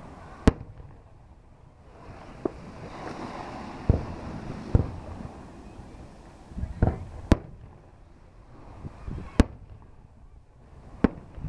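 Fireworks exploding with about eight sharp bangs at irregular intervals, some louder and sharper than others.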